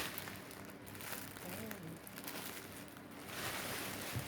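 Rustling and crinkling of parcel packaging being handled.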